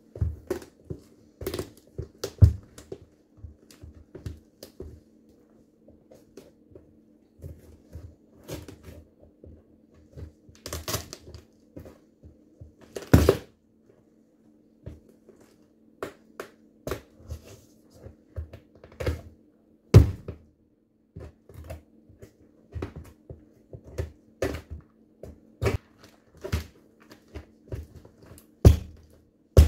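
Rubber-soled sneakers stomping on a broken pumpkin on a wooden floor: irregular heavy thuds, one every half second to two seconds, as the rind and flesh are crushed. The loudest stomp comes about halfway through.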